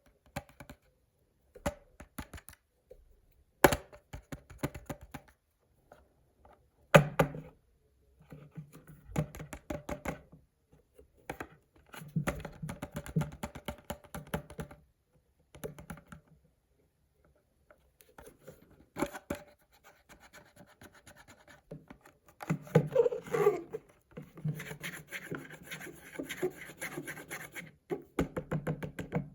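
Toy packaging being handled and opened by hand: irregular scratching, rustling, taps and knocks, with two sharp knocks about 4 and 7 seconds in and denser rustling and scratching in the second half.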